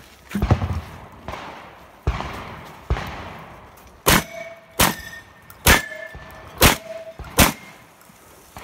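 Shotgun fired in a string of about nine shots, roughly one a second, the later ones followed by a brief metallic ringing from steel targets being hit.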